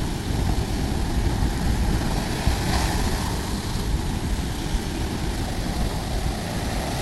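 Sea surf washing onto a beach under a heavy, fluttering low rumble of wind on the microphone.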